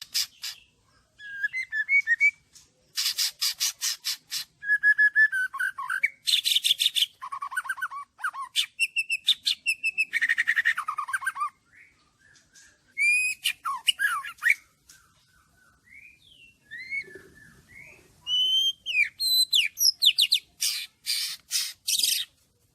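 Murai songbird singing a long, varied song: clear whistled notes that glide up and down, mixed with fast chattering trills, broken by short pauses between phrases.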